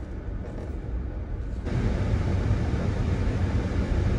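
Car cabin noise: a quiet low hum from the stopped car, then an abrupt jump to louder steady road and tyre noise as the car drives along a highway.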